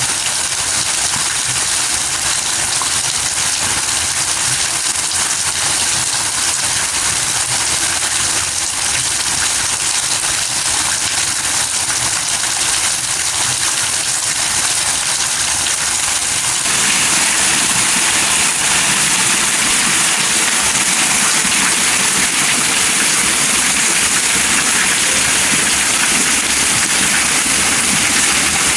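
Steady rain falling, heard as an even hiss. A little past halfway it suddenly becomes louder and fuller and stays that way.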